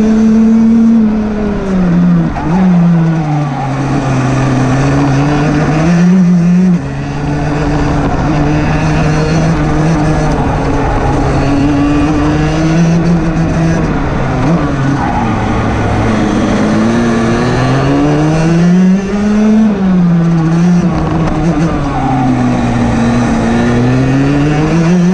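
Rotax DD2 kart's 125 cc single-cylinder two-stroke engine at racing speed, its pitch climbing and falling every few seconds as it accelerates out of corners and lifts off into them.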